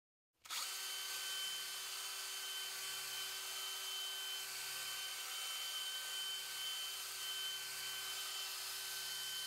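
Cordless drill spinning an 800-grit 3M sanding disc against a polycarbonate panel: a steady motor whine that starts about half a second in.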